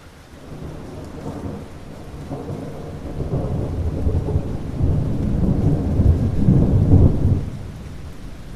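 Rolling thunder over steady rain: a low rumble that builds, is loudest about five to seven seconds in, then dies down near the end.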